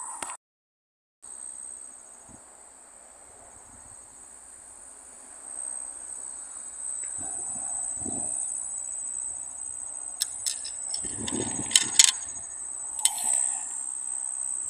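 Insects shrilling in a steady high-pitched drone, cut off briefly just after the start. Handling rustles and a few sharp clicks come in over the second half; the clicks are the loudest sounds.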